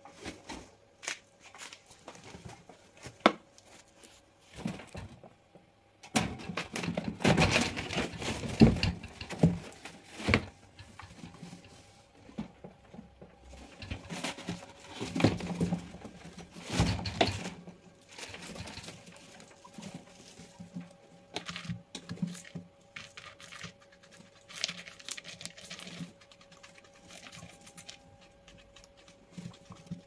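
Guinea pigs moving and feeding in their cage: rustling and crinkling of bedding with light scrabbling taps, louder bouts of rustling twice in the middle.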